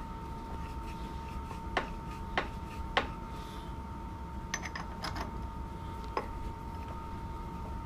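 Metal tools clicking and clinking as they are handled at a stopped lathe: three sharp knocks in the first three seconds, a short run of ringing metallic clinks around the middle, and one more knock later, over a steady faint high hum.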